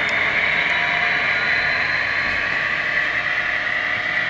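HO-scale Athearn Genesis SD70ACE model locomotive running along the track, its Tsunami sound decoder playing a diesel prime-mover sound through the model's small onboard speaker. The sound is steady.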